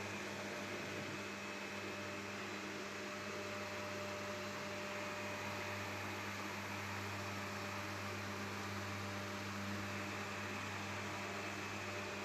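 A steady low electrical hum with an even hiss over it.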